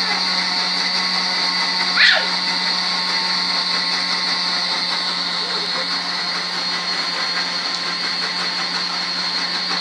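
Vienta electric blender running steadily at speed with a loud motor whine, blending an ice cream mixture. A brief rising squeak sounds about two seconds in.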